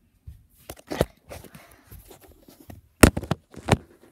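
Knocks and rustling from the recording phone being handled and repositioned: a knock about a second in, then a sharp knock about three seconds in and another just after.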